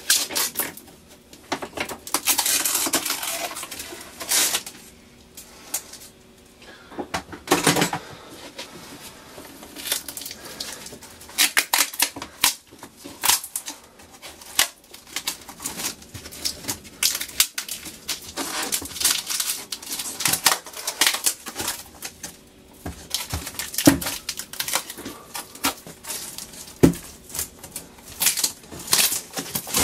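Freshly CNC-cut acrylic (Perspex) sheet and its offcuts being lifted and handled on the machine's wooden bed: irregular rustling and scraping, with sharp clicks and knocks of plastic on wood and metal.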